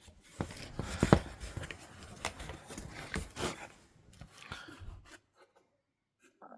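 Handling noises of a box and objects being moved: rustling and scraping with a few light knocks. The sound falls away to near silence about five seconds in.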